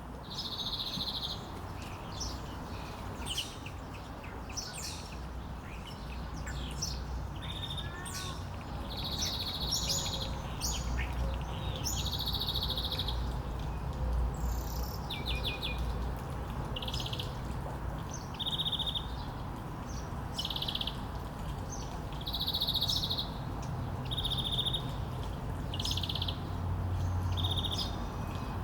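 Small songbirds chirping and trilling over and over: short, high, buzzy trills and quick chirps follow one another with brief gaps, over a steady low background rumble.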